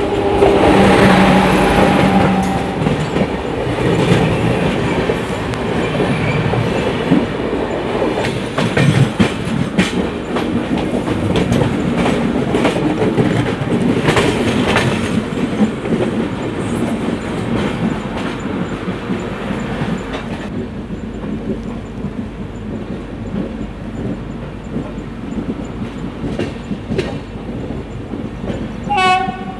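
Two passenger trains passing each other at speed, heard from beside the open side of the moving train. The oncoming Tata–Amritsar Jallianwala Bagh Express's locomotive goes by loudest about a second in. This is followed by a long rush of its coaches with the steady clickety-clack of wheels over rail joints.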